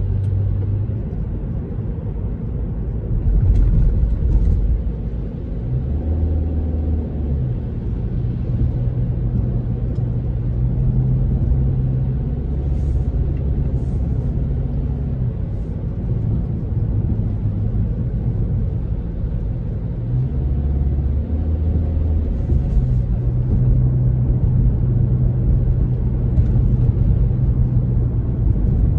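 Car cabin noise while driving on a wet road: a steady low rumble of engine and tyres, the engine's hum stepping up and down in pitch several times.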